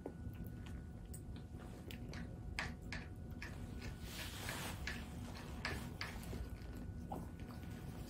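A baby chewing a spoonful of food, with scattered soft mouth clicks and smacks over a low room hum, and a brief rustle about four seconds in.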